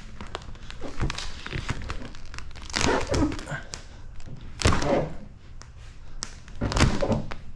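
A large sheet of clear PremiumShield NextGen paint protection film crinkling as it is pulled and stretched by hand over a car's wet rear hatch, with three louder bursts about two seconds apart and a few dull knocks.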